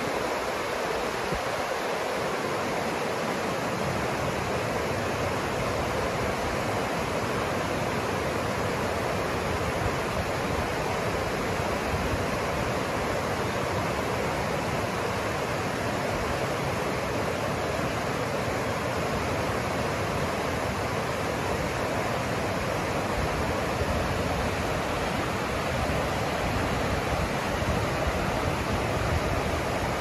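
Fast river rushing over rocks in whitewater rapids: a steady, unbroken noise of water.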